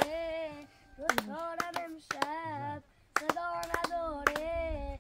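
A high voice singing long, wavering notes, with hand claps keeping time.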